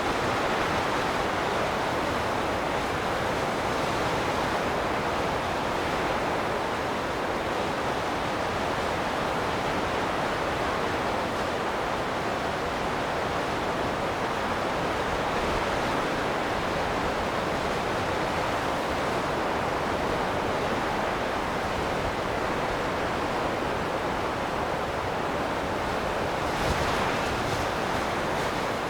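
Wind blowing steadily, a continuous rushing noise that swells slightly near the end.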